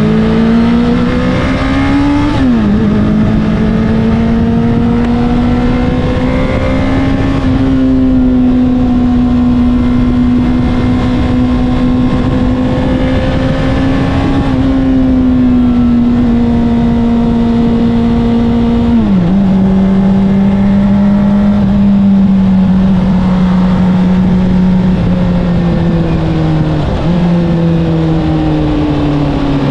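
Honda CBR600RR's inline-four engine through an Akrapovic exhaust, heard on the move. Its pitch climbs and falls with the throttle, drops sharply at a gear change about two seconds in and again past the middle, and holds steady cruising revs in between.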